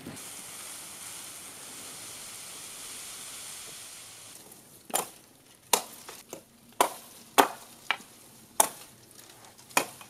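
A steady hiss for about four seconds, then six sharp chops about a second apart: a Hults Bruk Aneby forest axe striking a felled birch pole, limbing off its branches.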